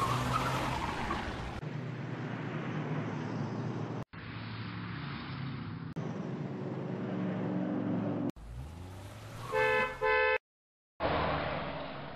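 Street traffic: cars running past with engine hum, made of several recordings joined with abrupt cuts. Near the end a car horn sounds twice in quick succession, then the sound drops out briefly.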